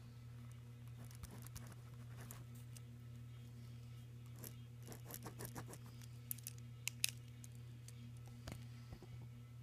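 Scattered faint clicks and soft rustles over a steady low hum, with two sharper clicks about seven seconds in.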